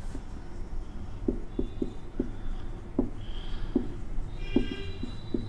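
Marker writing on a whiteboard: about ten light, irregular taps and strokes of the tip as letters are formed, with a brief faint squeak about four and a half seconds in.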